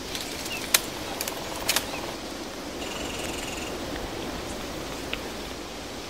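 Forest ambience: a steady hiss of background noise with a few brief bird chirps, one held a little under a second about three seconds in, and several sharp clicks, most of them in the first two seconds.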